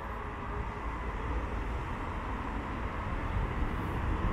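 Steady rumble and hiss of busy highway traffic.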